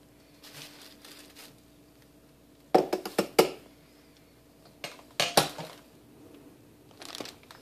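Kitchen items being handled on the countertop: two quick clusters of sharp clattering knocks about two seconds apart, over a faint steady hum, with softer plastic-bag rustling near the end.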